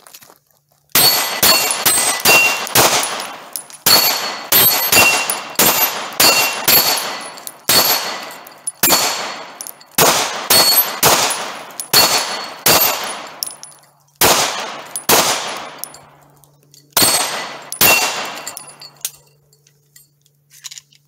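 Rapid strings of 9mm pistol shots from a Glock fed by a 50-round drum magazine, with a steel target plate ringing on some hits. The shooting starts about a second in, comes in quick runs broken by short pauses, and stops a little after eighteen seconds.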